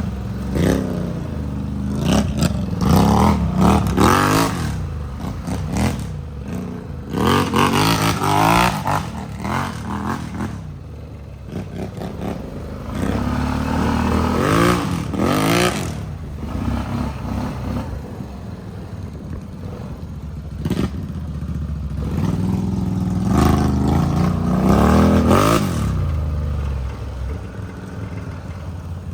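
ATV engines revving up and easing off again and again, the pitch climbing and falling with the throttle. The loudest revs come in several waves, with rushing noise over them.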